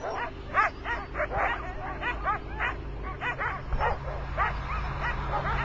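A team of sled dogs barking and yipping, many short overlapping calls, thinning out about halfway through.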